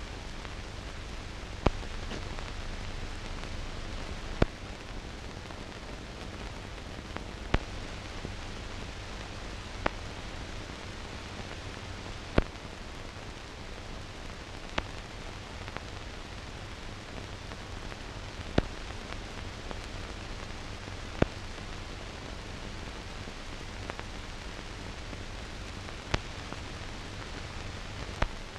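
Steady hiss with a low hum and a sharp click every two to three seconds: the bare noise floor of a silent newsreel film transfer, carrying no recorded sound.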